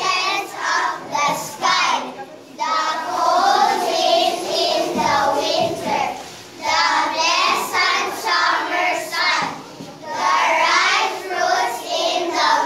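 A group of young children singing together in unison, in phrases of a few seconds with short breaks between them.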